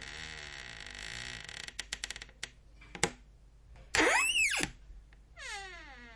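Squeaky door hinges creaking in a series of door openings: a wavering creak, then a quick run of clicks and a sharp click, then a loud squeal that rises and falls about four seconds in, and a falling creak near the end.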